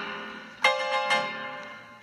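Slow instrumental keyboard music: a held chord fades away, then two new chords are struck in the second half, each ringing out and dying down.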